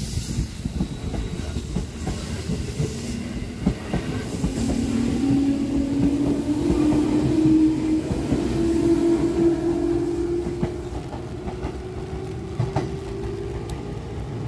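Electric multiple-unit train running past along the platform, its wheels clacking over the rail joints under a broad rumble. A motor whine rises slowly in pitch through the middle of the pass.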